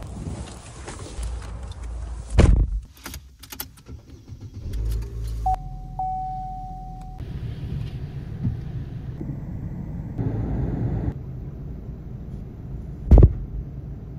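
A string of short clips of car sounds: engine and road rumble, two loud thumps about two seconds in and near the end, a few sharp clicks and jingles, and a steady single-pitched tone lasting about a second and a half.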